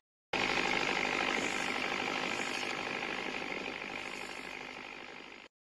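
Toy pop-pop steam boat putt-putting with a rapid, steady run of ticks, fading out gradually and cutting off near the end.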